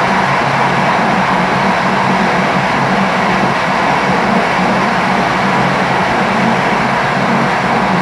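Steady running noise of a train at speed, heard from the front of the train: wheels on the rails with a steady low hum underneath and no rail-joint clicks.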